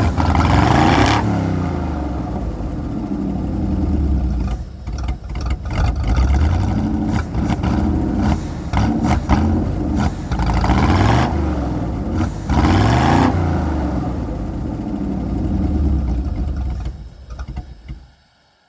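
Holden 253 V8 running with a vacuum leak, its pitch rising and falling as the throttle is opened twice, then switched off near the end and dying away to silence.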